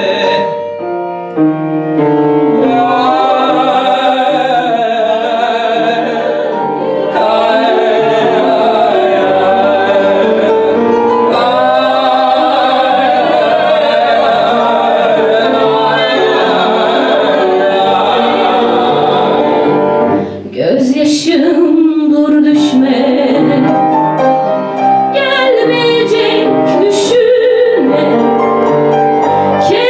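Upright piano accompanying a small group of singers: a male voice leads with other voices joining in harmony, and after a brief dip about two-thirds of the way in a female voice takes the lead.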